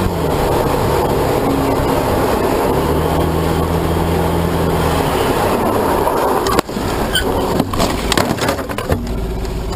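Motorcycle engine running under heavy wind rush on a helmet-mounted camera. A little past halfway the sound drops suddenly and a run of sharp knocks and scrapes follows as the bike goes down in a crash.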